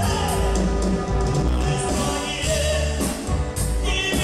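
Live cumbia band playing a song with a steady dance beat: drums, electric bass, guitar and keyboards.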